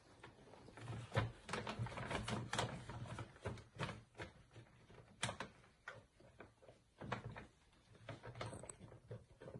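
Basset hound eating dry food with its head inside the plastic food bag: irregular crunching and crackling of kibble and bag, several sharp clicks a second.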